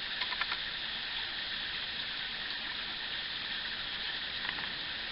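Stream water running over rocks, a steady even hiss.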